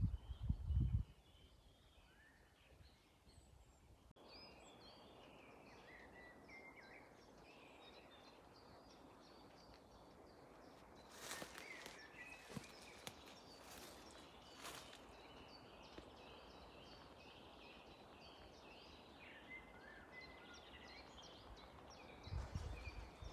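Faint songbirds twittering in woodland, many short chirps overlapping. A few short rustles or clicks come about halfway through. Brief low buffeting on the microphone in the first second and again near the end.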